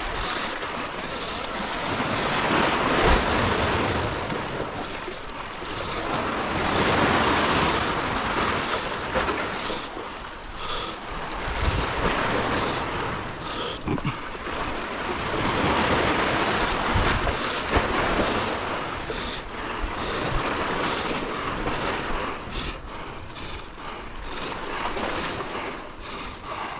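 Sea waves washing against a concrete-block breakwater, swelling and falling away every few seconds, with wind buffeting the microphone.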